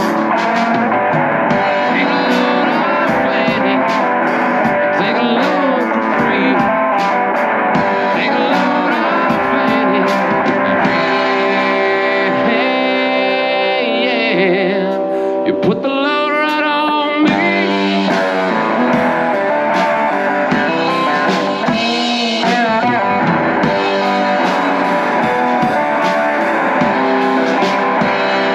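Live rock band music: electric guitar and a drum kit playing an instrumental passage, with a run of bent guitar notes about halfway through.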